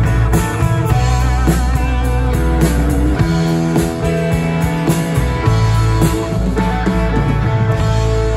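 Live rock band playing an instrumental break: electric guitar playing a lead line with wavering vibrato on held notes about two to three seconds in, over a drum kit and low sustained notes.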